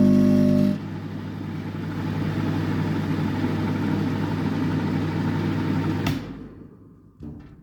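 A modified microwave oven running at full power with a loud electrical buzz. Less than a second in it drops to a quieter steady hum. About six seconds in there is a click as it switches off, and the hum fades out; a brief clatter follows near the end.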